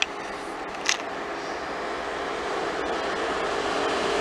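ICE 2 high-speed electric train (Class 402) approaching, its running noise growing steadily louder, with a faint steady hum. A short click comes about a second in.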